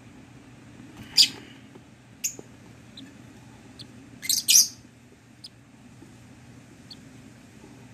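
Lovebird chicks calling in the nest box: short shrill calls about a second in and at about two seconds, then a louder double call a little past four seconds, with faint brief chirps in between.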